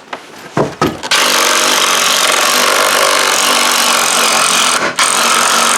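Electric drill boring a hole through wood framing: two short blips of the motor, then it runs steadily under load, easing off for a moment about five seconds in before boring on.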